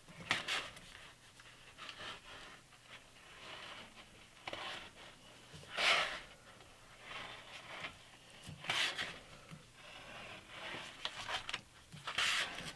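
Paper-backed 150-grit aluminium oxide sandpaper rustling and rubbing as it is pulled tight and wound in a spiral around a wooden sanding drum. There are louder crackles of the paper three times: about halfway through, about two-thirds through and near the end.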